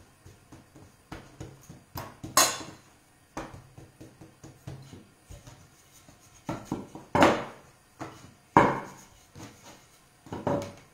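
Wooden rolling pin working dough on a wooden pastry board: scattered knocks and clicks of wood on wood, with three louder knocks, the first about two seconds in and two more close together near the end.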